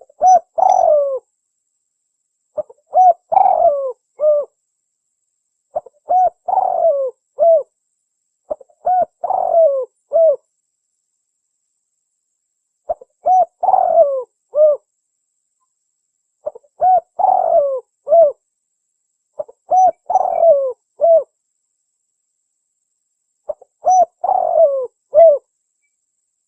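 Spotted dove (tekukur) cooing: eight phrases of a few short coo notes, each phrase about a second and a half long, repeated roughly every three seconds with silent gaps between.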